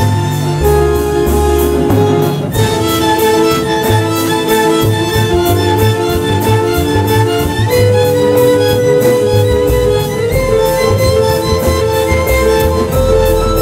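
Live ensemble music: bowed violins and cello holding long notes over a double bass line, with electric guitar and a steady rhythmic pulse.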